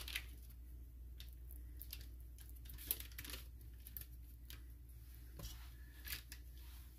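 Faint, scattered rustling and crinkling with a few light clicks: a stick of margarine being unwrapped from its paper wrapper and handled into a mixing bowl of flour.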